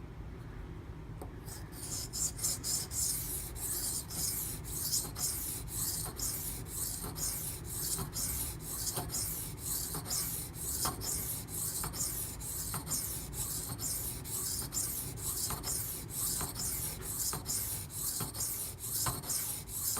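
A steel knife blade stroked back and forth across a coarse 500-grit Beston water stone, a rasping scrape repeated in quick, even strokes, about three a second, starting about two seconds in.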